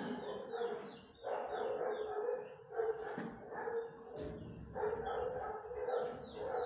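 Several shelter dogs barking, their barks overlapping almost without pause, with a short lull about a second in.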